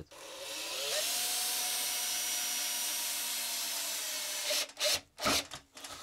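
Cordless drill spinning up with a rising whine, then a steady whir as it drills into plywood, for about four and a half seconds before it stops. A few short knocks follow near the end.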